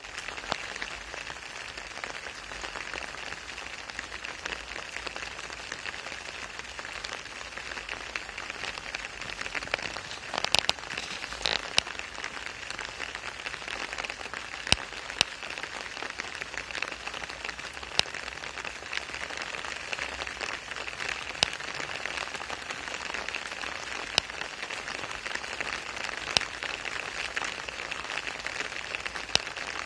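Steady rain falling on wet asphalt pavement: a continuous even hiss, with occasional sharp ticks every few seconds and a brief cluster of them about a third of the way in.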